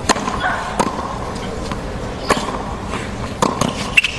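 Tennis rally on a hard court: sharp pops of the ball being struck by rackets and bouncing, spaced irregularly about a second apart with a quick pair near the end, over a steady stadium background hum.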